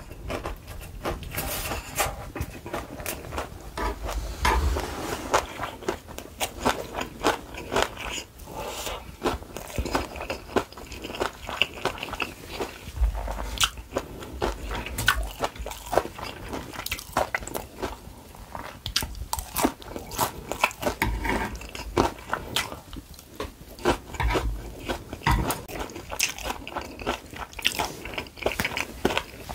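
Close-miked chewing and biting: soft glass-noodle japchae and crunchy battered fried peppers, in many small irregular crisp crackles and clicks, with a few dull low thumps.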